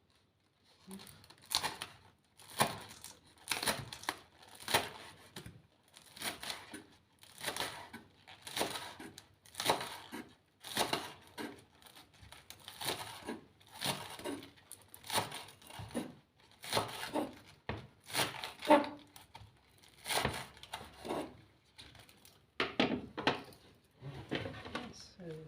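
Knife slicing spring onions on a chopping board: crisp cutting strokes about once a second, unevenly spaced.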